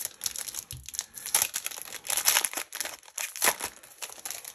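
A Magic: The Gathering booster pack's wrapper crinkling and tearing as it is handled and opened: an irregular run of crackles with a few louder bursts.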